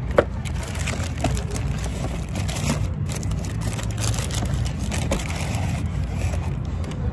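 Paper food wrapping and a cardboard takeout box crinkling and rustling as a sandwich is unwrapped by hand, with one sharp tap just after the start, over a steady low rumble.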